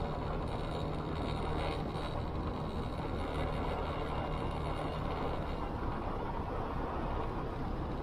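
Motorcycle running at a steady cruising speed: an even engine hum under a constant rush of wind and road noise.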